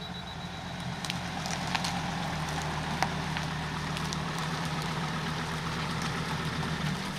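An engine idling steadily, with scattered light clicks and ticks over the hum.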